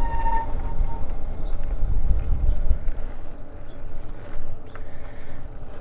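Riding noise from an e-bike on a paved trail: wind buffeting the microphone and tyre rumble. It is heaviest in the first three seconds and eases after. A thin steady whine sounds briefly at the start and fades out about a second in.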